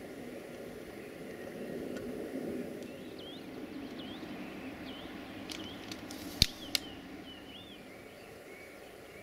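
Open-air background: a steady low rumble, with small birds calling in short, repeated chirps. Two sharp clicks about a third of a second apart come about two-thirds of the way through and are the loudest sounds.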